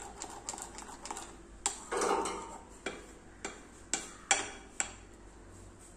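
Spoon stirring a thick banana and cocoa batter in a bowl: irregular sharp clicks of the spoon against the bowl, with a longer scrape about two seconds in.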